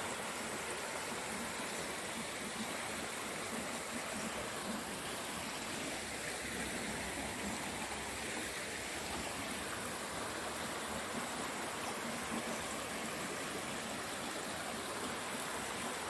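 Shallow rocky stream running steadily over stones, a continuous even rush of water.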